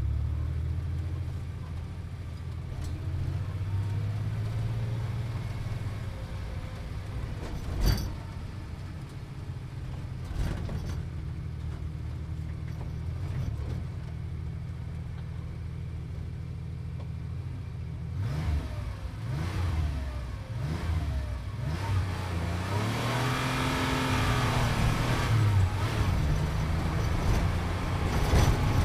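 Sports car engine idling with a low, steady note, with a single sharp knock about eight seconds in. About two-thirds of the way through it is revved several times, the pitch rising and falling, and it grows louder toward the end.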